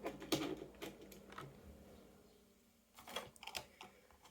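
Light clicks and crinkles of Hot Wheels packaging and toy cars being handled during unboxing, in two short clusters: one in the first second or so, one about three seconds in.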